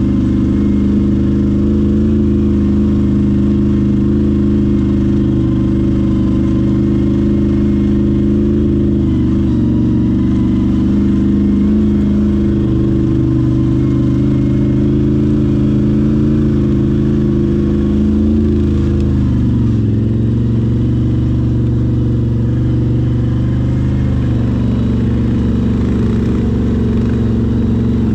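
ATV engine running at steady low revs, its pitch shifting slightly a few times.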